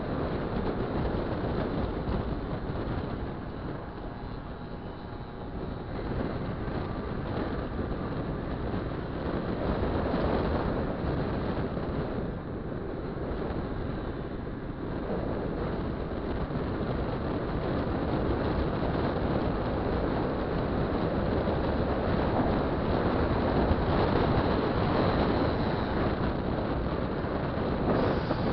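Wind rushing over the microphone of a scooter ridden at speed, with its two-stroke engine running underneath; the level swells and dips slightly as the rider speeds up and eases off.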